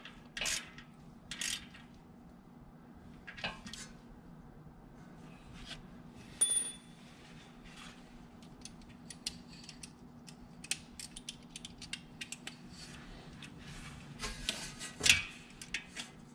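Small wrench clicking and metal tools clinking while tiny screws on an oil filter cap are tightened. The clicks are scattered at first and come thicker and faster in the second half, over a faint steady hum.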